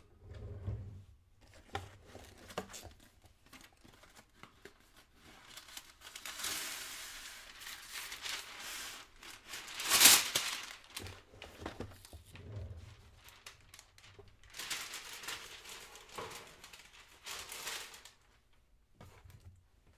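Kitchen handling noises: packaging being crinkled and rustled in irregular bursts, with quiet gaps between them and the loudest rustle about ten seconds in.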